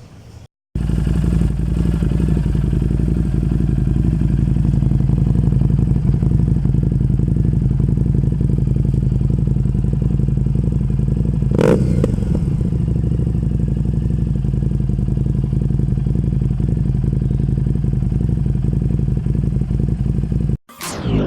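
Harley-Davidson 750 V-twin motorcycle engine running steadily, just after a service, with one brief louder sweep about halfway through.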